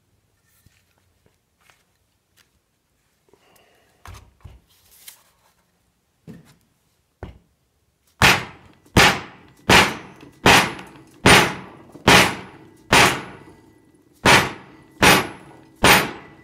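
Hammer tapping a splined pin into a 200-4R automatic transmission's front pump: a few light knocks, then from about halfway in a steady run of about a dozen hard, ringing metal blows, some three-quarters of a second apart.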